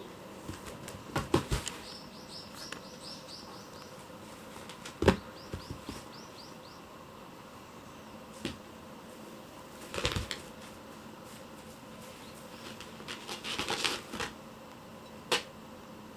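Kittens pouncing at and batting a cat teaser toy: scattered thumps, rustles and scrabbling. Two short runs of quick, high ticking come about two and five seconds in.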